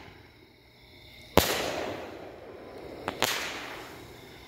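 Aerial shells from a consumer fireworks cake going off. There are two loud sharp bangs, about a second and a half in and again about three seconds in, and each one trails off in an echo.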